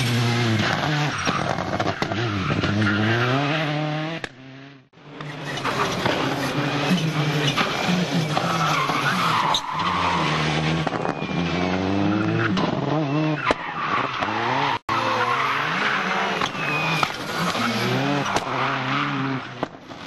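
Peugeot 206 WRC rally car's turbocharged four-cylinder engine revving hard, its pitch climbing and falling again and again through gear changes and lifts, with some tyre squeal. The sound breaks off briefly about five seconds in and again near fifteen seconds.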